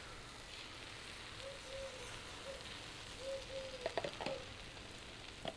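Beaten eggs sizzling as they pour into a hot frying pan on a portable gas stove. About four seconds in comes a cluster of sharp clicks from a fork scraping the jug, and another click near the end.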